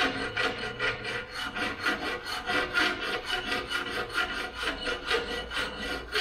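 Flat hand file drawn back and forth across the edge of a freshly cut metal bracket, deburring it. The rasping strokes come in an even rhythm, about three a second.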